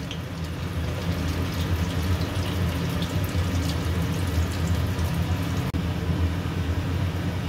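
Chhena koftas deep-frying in oil in a steel kadai over low to medium heat: a steady bubbling sizzle with faint crackles over a low steady hum, dropping out for an instant about six seconds in.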